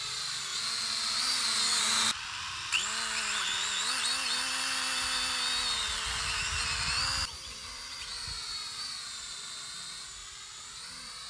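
Small toy quadcopter drone's propeller motors whining at a high pitch that wavers up and down as it hovers and manoeuvres. The sound cuts off abruptly about two seconds in and again about seven seconds in, and is fainter over the last few seconds.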